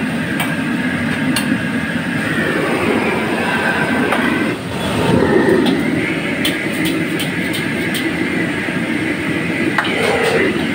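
High-pressure gas wok burner running with a steady loud roar, with water from the wok station's faucet running alongside. A quick run of sharp metal clinks comes about two-thirds of the way through.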